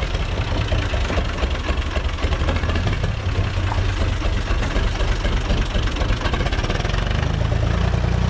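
UTB 445 tractor's three-cylinder diesel engine running at low revs as the tractor moves off slowly, a rapid low clatter of firing pulses. Near the end the engine note steadies and fills out a little.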